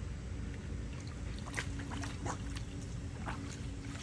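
Water sloshing and splashing in a small pool, with scattered short splashes over a steady low rumble and a faint steady hum.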